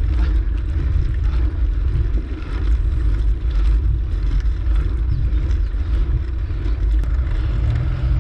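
Wind buffeting the microphone of a camera carried on a moving bicycle, a steady low rumble.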